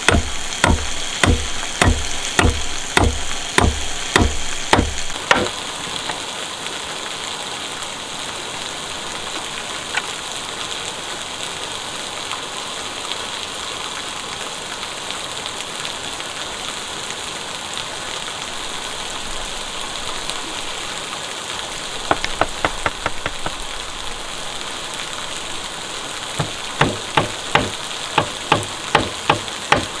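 Repeated sharp blows, about two a second, for the first five seconds, then a steady hiss. The blows return briefly about 22 seconds in and again near the end.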